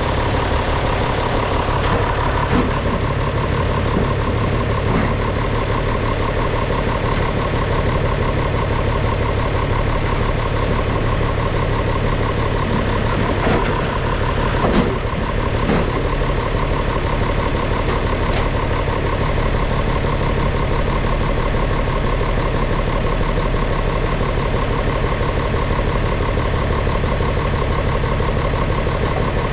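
Allis-Chalmers D17 diesel tractor engine running steadily, with a few brief knocks or clanks around the middle.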